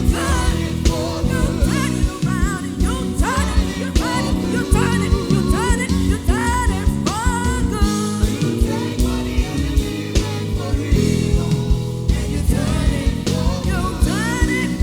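A live gospel worship band playing with a steady drum beat, bass and guitar, under a sliding, ornamented lead melody line.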